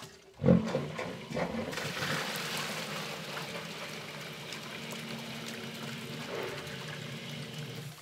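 Submersible sump pump switching on and running with a steady motor hum while it pumps the test water up the discharge pipe, with a steady rush of water splashing out into a bucket. Water is being poured into the basin near the start.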